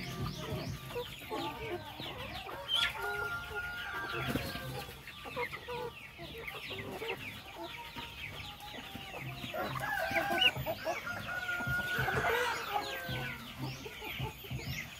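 A mixed flock of free-range chickens (Rhode Island Reds, barred Plymouth Rocks, Buff Orpingtons and native hens and roosters) clucking while they feed, many short calls overlapping, with a few longer held calls among them.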